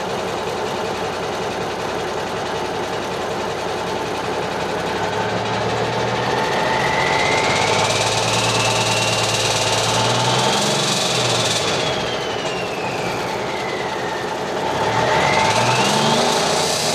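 Cummins Big Cam III inline-six diesel running with its Holset turbocharger whistling. The whistle climbs slowly in pitch, drops back a little past halfway, then climbs again sharply near the end as the engine revs.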